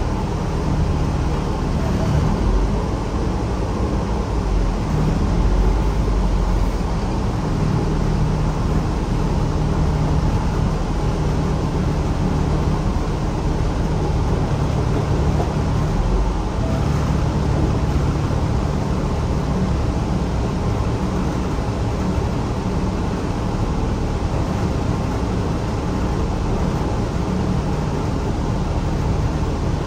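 City transit bus running: a steady drone of engine and road noise, the engine note swelling and easing now and then.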